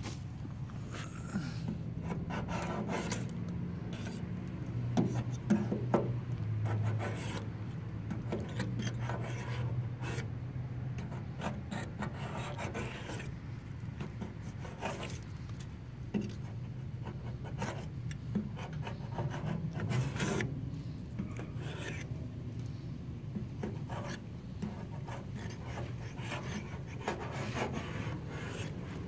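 Handheld razor-blade scraper rasping over a 1972 Mercury Cougar's steel body panel in repeated, irregular strokes, lifting off loose base-coat paint in strips. The paint is coming away easily, which the owner takes as the sign of a poor paint job.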